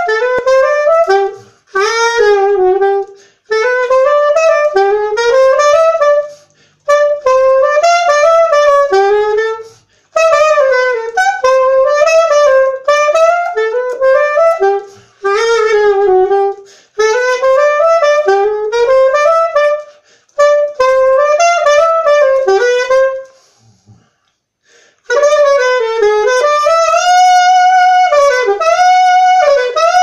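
Unaccompanied curved soprano saxophone playing a fast jazz melody line in quick phrases, broken by short pauses for breath. From about 25 seconds in, the phrases slow into longer held notes.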